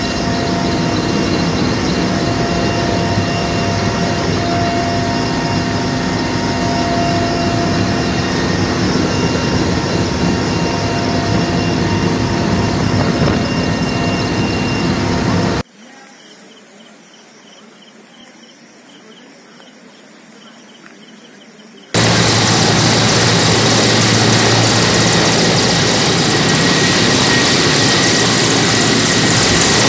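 Military transport helicopter's turbines and rotor heard from inside the cabin: a loud, steady drone with a few fixed whining tones. About halfway through it cuts to a much quieter stretch of about six seconds. Then the helicopter is heard from outside, hovering low, loud and steady.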